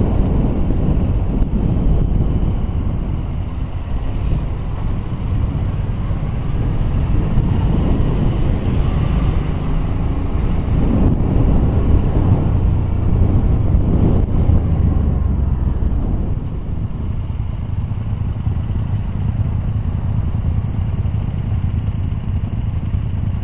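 Motorcycle engine running while riding, with wind noise on the microphone. About sixteen seconds in the noise drops and steadies as the bike slows and rolls to a stop.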